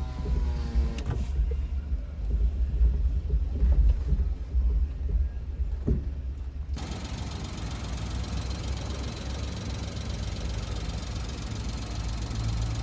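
Car driving with loose wheel nuts: a low, uneven clunking rumble from the loose wheel, the sign that the nuts have worked loose and need retightening to torque. About seven seconds in, the sound changes abruptly to a steadier, hissier road noise.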